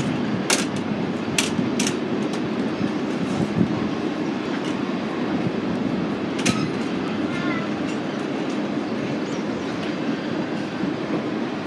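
Passenger train running on the track: a steady rumble with a few sharp clicks of the wheels on the rails in the first two seconds and again about six and a half seconds in.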